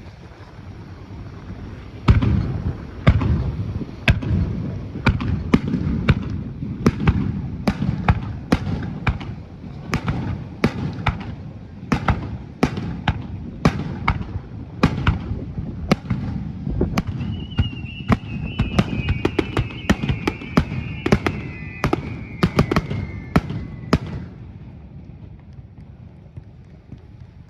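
Fireworks bursting in quick succession, about two sharp cracks a second over a low rumble, stopping a few seconds before the end. In the second half a high whistle falls slowly in pitch.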